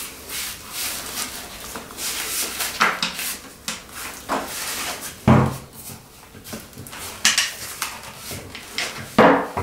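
Handling of a carbon fibre shooting tripod: irregular clicks, knocks and rubbing as its legs are swung out and their hinge locks are set in their locking positions, with the loudest knock about five seconds in.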